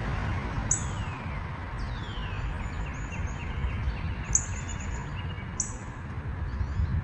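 Wild birds calling: two downward-sliding calls, then a quick series of short notes, over a steady low rumble.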